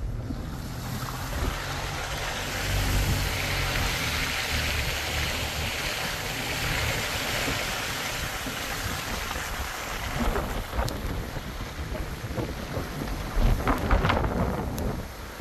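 Strong gusty wind blowing across the microphone: a steady rushing hiss with uneven low rumbling buffets. It builds about three seconds in and gusts harder near the end.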